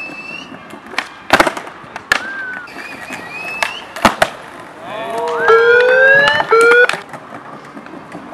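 Skateboard tricks on smooth flat paving: several sharp clacks of the tail popping and the wheels landing. About five seconds in, a loud, high, rising and wavering cry lasts about two seconds over them.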